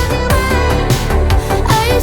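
Pop background music with a steady beat and a melodic line, in an instrumental stretch without vocals.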